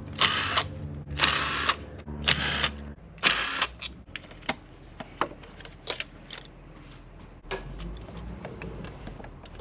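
Cordless power driver whirring in four short bursts about a second apart, driving the fasteners of the PCV valve. Then a run of light clicks and taps of tools and small metal parts.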